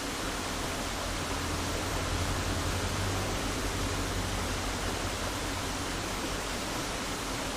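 Steady rushing of flowing stream water, with a low hum that swells a little in the middle.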